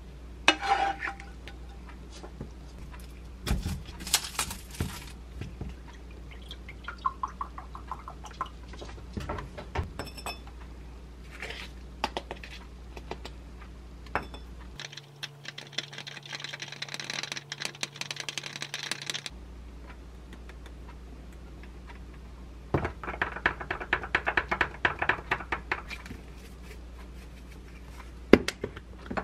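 Kitchen handling sounds: a wooden spatula scraping stir-fried egg and tomato from a pan onto a ceramic plate, then protein powder scooped into a small glass of milk and mixed in. Midway there are a few seconds of pouring or frothing noise, later a quick run of clinks in the glass, and a knock near the end.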